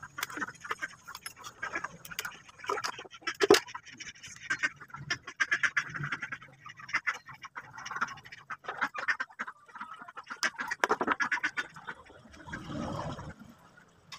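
Ducks quacking repeatedly in short, irregular calls, with small clicks from a plastic case and wires being handled.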